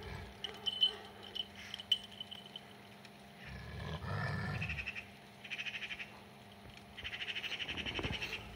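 A series of short, rapidly pulsing animal calls, the longest near the end, with a lower, rougher sound just before the middle.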